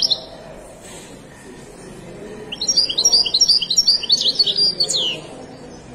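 European goldfinch singing. A phrase trails off right at the start, then a rapid twittering phrase of about two and a half seconds begins around two and a half seconds in and ends on a falling note.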